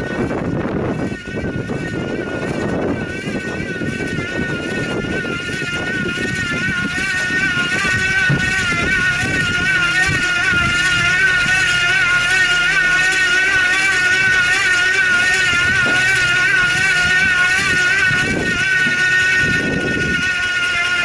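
Cyclone 250 W bottom-bracket electric motor whining steadily as it drives the trike's chainset, its pitch wavering slightly; the whine grows louder about eight seconds in. A low rumble sits beneath it in the first few seconds.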